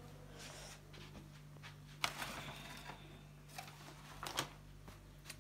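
Handling noise of a phone held in the hand: scrapes and sharp taps of fingers against the phone, over a low steady hum.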